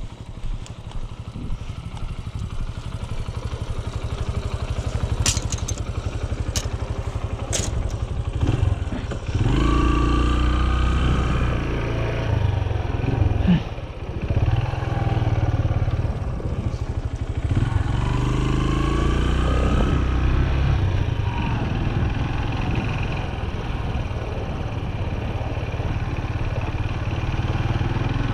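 Farm motorbike engine running low and steady, then louder about nine seconds in as it revs and pulls away, the engine note rising and falling as it is ridden. A few sharp clicks come in the first half.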